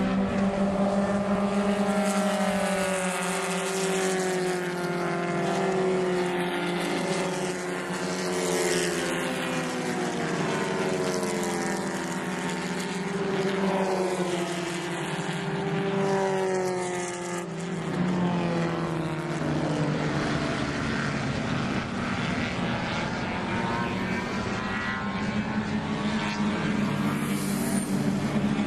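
Several small race-car engines running at racing speed, their notes overlapping and rising and falling in pitch as the cars accelerate, lift off and shift, over a steady low engine drone.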